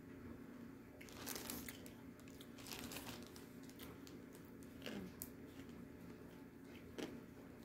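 A clear plastic zip bag crinkles in two short spells, with crunching as a piece of edible clay is bitten and chewed, and a few sharp crunches near the end.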